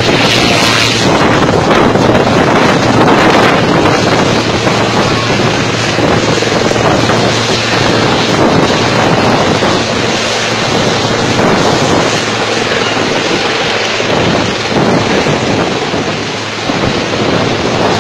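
Helicopter's rotor and turbine running at full power as it lifts off and climbs away, a loud steady din with a low hum. Rotor-wash wind buffets the microphone, and the sound eases slightly near the end as it moves off.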